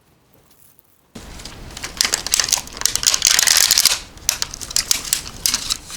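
Plastic food packaging being handled and crinkled. It starts abruptly about a second in, is loudest and densest in the middle, then breaks into scattered crackles.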